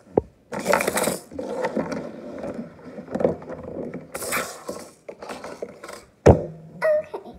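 Plastic slime tubs and lids being handled and shuffled on a desk, with irregular clattering and rubbing and one sharp knock about six seconds in.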